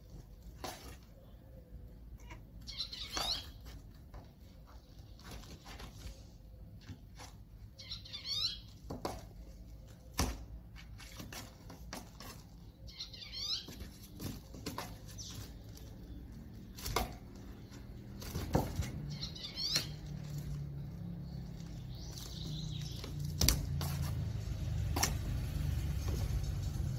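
Cardboard flap and box knocking, tapping and scraping as a cat bats at them, with short high chirps every few seconds. A low hum builds in the second half.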